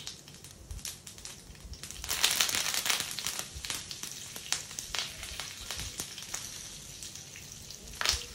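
Curry leaves spluttering in hot oil with cumin, chana dal and urad dal: a loud burst of sizzling and crackling about two seconds in, then scattered popping, with another short burst near the end.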